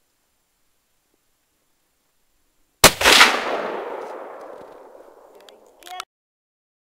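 A single gunshot from a shoulder-fired long gun about three seconds in, its echo rolling away and fading over the next three seconds. A brief smaller noise follows just before the sound cuts off suddenly.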